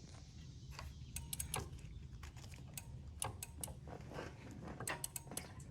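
Faint, irregular clicks and light knocks of hand work on a motorcycle's clip-on handlebar and its controls as they are adjusted.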